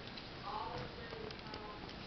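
Faint background music, with a few light clicks from makeup brushes being handled.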